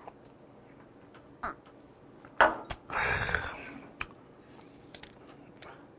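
Scattered light clicks and knocks of cooked gooseneck barnacle shells being handled and pulled apart, with a short raspy exhale about three seconds in.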